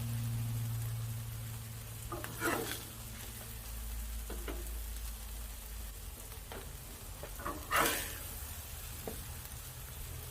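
Burgers and sloppy joe meat sizzling on a Blackstone flat-top griddle, with a low hum for the first two seconds and several short scrapes or clanks on the griddle, the loudest about eight seconds in.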